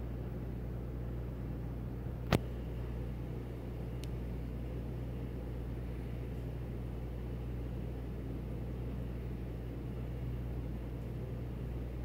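Steady low mechanical hum, with one sharp click about two seconds in and a fainter click about two seconds later.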